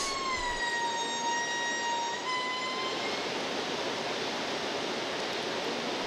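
Indri singing: one long wailing note that falls slightly in pitch and fades out about three seconds in, over the steady rush of a river cascading over rocks.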